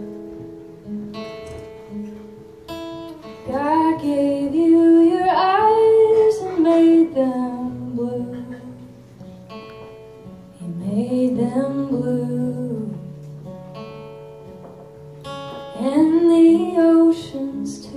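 A woman singing to her own acoustic guitar: three sung phrases of a few seconds each, with guitar notes ringing on between them.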